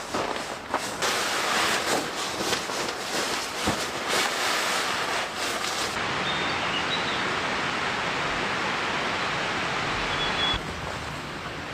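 Steady rain hiss with scattered sharp taps in the first half. About six seconds in the sound turns abruptly duller, and it drops in level near the end.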